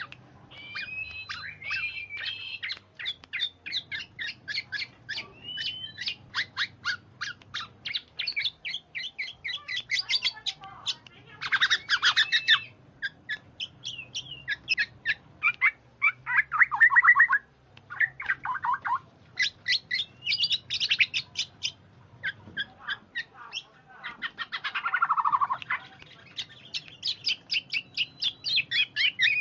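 Bird-lure playback of birds calling: rapid trains of short repeated chirps, broken by harsher squawking bursts about twelve and twenty-five seconds in.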